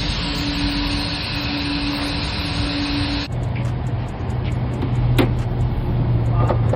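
A steady machine noise, a hiss with a constant hum, cuts off suddenly about three seconds in. A lower steady hum follows, with a few light clicks.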